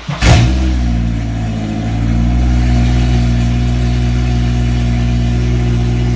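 Honda S2000's 2.2-litre four-cylinder engine catching from the starter with a loud burst about a third of a second in, then settling into a steady idle that lifts slightly about two seconds in.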